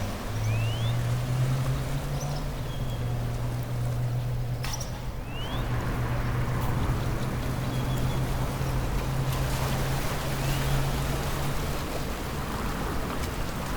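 A steady low engine hum that fades out near the end, over a constant wash of noise, with a few short rising whistles.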